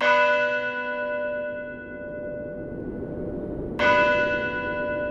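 A large church bell struck twice, about four seconds apart, each stroke ringing on with many overtones and fading slowly, over a low steady rushing background.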